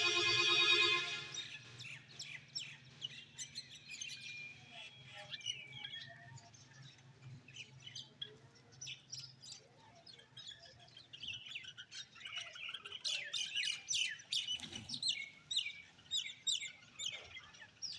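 Bulbuls chirping and calling, many short notes that grow busier in the second half. A held musical tone sounds at the start and stops after about a second.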